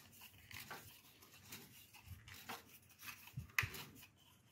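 Faint scraping and light metallic clicks from a Briggs and Stratton mower engine being turned over by hand, with its valve train and pushrods exposed. A sharper click comes about three and a half seconds in.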